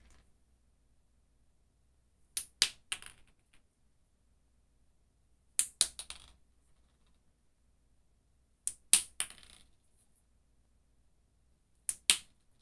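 Dried black beans thrown against a concrete wall, four times about three seconds apart. Each throw gives one or two sharp clicks, then smaller clicks that die away as the beans bounce and skitter on the concrete floor. The last throw comes right at the end.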